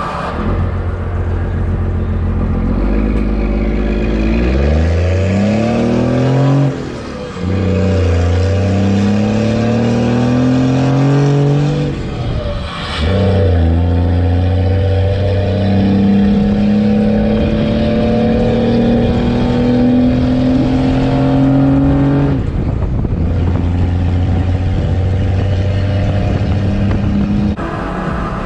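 1996 Cummins 5.9 12-valve 6BT diesel, running on waste motor oil, accelerating under load through the gears while pulling a heavy trailer. The engine note climbs steadily in pitch, then dips briefly at gear changes about 7, 13 and 22 seconds in before climbing again.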